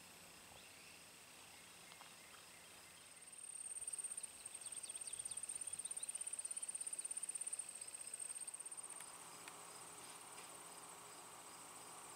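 Insects, crickets by the sound, trilling steadily in a very high, fast-pulsed buzz. The trill grows clearly louder for about four seconds in the middle, then settles back.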